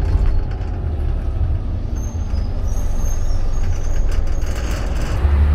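Interior noise of a 1996 Scania L113 bus under way: the six-cylinder diesel engine and road noise make a steady low rumble, with body rattles and a few faint high squeaks in the middle.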